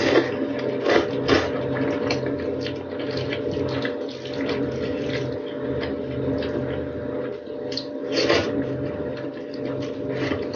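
Close-miked eating sounds: a person chewing and slurping fried rice noodles in a run of short, wet, irregular mouth noises. A steady low hum that pulses about twice a second runs underneath.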